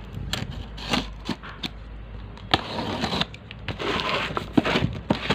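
A box cutter blade slicing the packing tape along a cardboard carton's seam: scratchy scraping strokes, two longer ones in the middle, broken by several sharp clicks and taps against the cardboard.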